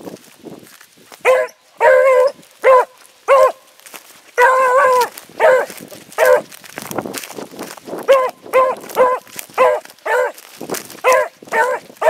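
Beagle giving tongue on a hare's scent line: a run of short, pitched, ringing bays, about two a second. One longer drawn-out bay comes a little before the middle, and there are brief pauses near the start and about two-thirds of the way through.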